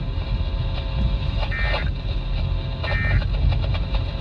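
Emergency Alert System SAME end-of-message data bursts from a NOAA Weather Radio broadcast: short warbling two-tone digital chirps, about a third of a second each and about a second and a half apart, marking the end of a flash flood warning. Under them is the radio receiver's steady hiss and low rumble.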